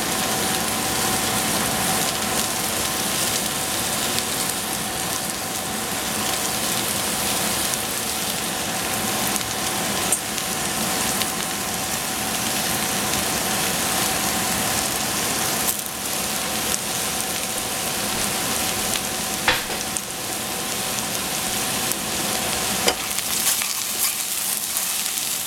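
Oyster mushroom pieces sizzling with a steady hiss as they fry in a stainless steel saucepan. A few sharp clicks come from the wooden spatula striking the pan, mostly in the later part.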